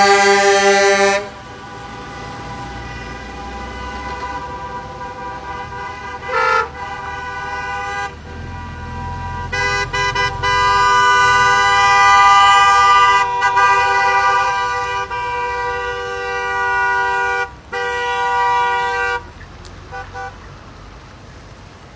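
Vehicle horns honking from a passing convoy: a semi truck's air horn sounding loud and cutting off about a second in, a short toot, then a long horn held with a few brief breaks for about ten seconds, and two short toots near the end. Engine and road noise from the passing vehicles runs underneath.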